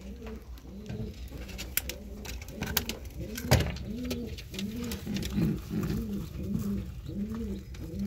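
Domestic pigeon cooing over and over from its nest, a run of short rising-and-falling coos, the guarding coo of a cock bird protecting the nest. A few sharp clicks and a knock come from handling, the loudest about three and a half seconds in.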